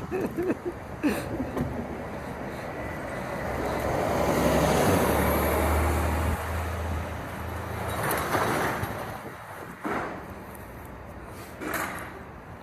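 Motor vehicle engine and road noise building up to a peak about five seconds in, with a low hum, then fading away; two short knocks follow near the end.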